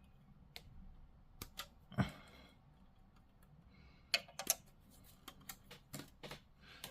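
Plastic model kit parts being handled and fitted together: scattered small clicks and taps, one sharper click about two seconds in and a quick cluster of clicks near the end.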